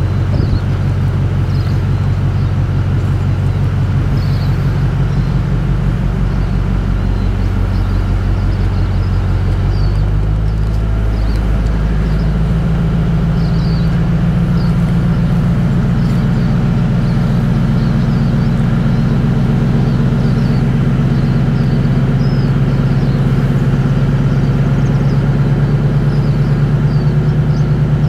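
A four-wheel drive's engine running steadily under load as it pulls against a tow strap, the pull slowly building. About eleven seconds in, the revs step up to a higher pitch and hold there, slightly louder.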